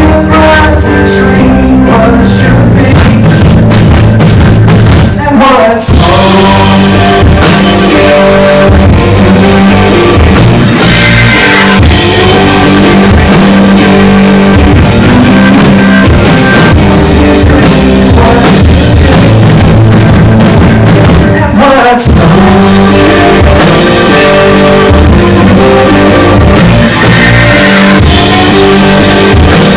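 A live band playing a southern folk-rock song, with guitar, drums and singing.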